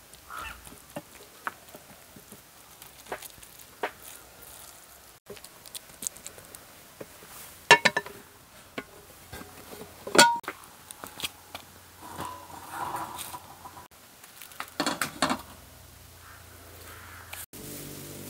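Cooking clatter: a metal spoon tapping and scraping rice into a metal pan, and the pan being handled with sharp knocks, the loudest two a little past the middle. Poultry call now and then in the background, and soft music comes in just before the end.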